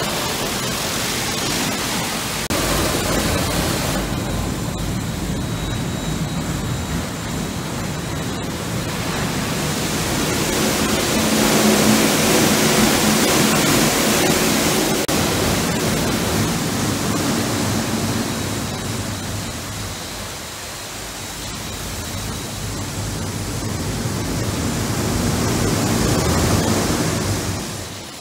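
Automatic rollover truck wash running: rotating brushes scrubbing a truck's cab under water spray, a steady rushing, splashing noise that swells and eases and falls off near the end.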